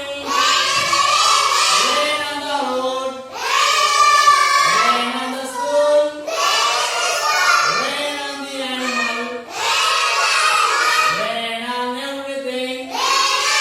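A class of children chanting a rhyme together in a sing-song chorus, one line about every three seconds.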